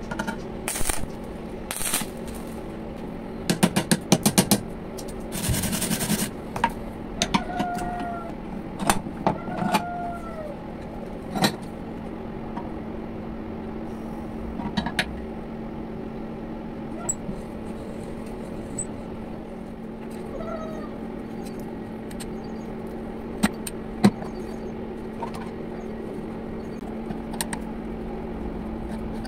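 Metal hand tools clicking and knocking against an iron block in a steel bench vise, with a brief scraping hiss about six seconds in, over a steady low hum. A few short rising-and-falling calls sound around eight to ten seconds in, and the second half is quieter with only a couple of clicks.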